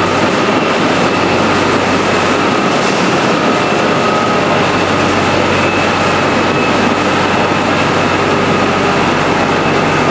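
Skid steer loader running and driving on a concrete floor: a steady, loud engine and machinery drone with a faint high whine over it.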